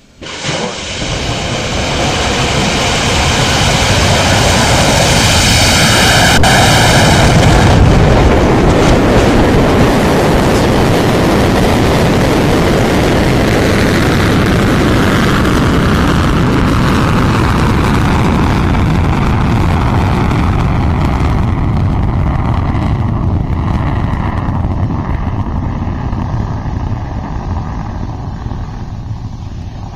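Firefly Alpha's four kerosene-fuelled Reaver first-stage engines at liftoff: a loud, deep roar of engine noise that starts suddenly, builds over the first few seconds, then slowly fades as the rocket climbs away.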